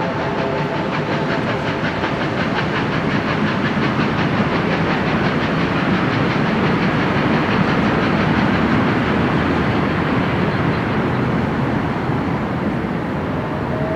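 Steam-hauled passenger train behind two Victorian Railways R class locomotives running past, with a steady rumble and the clatter of wheels on the rails.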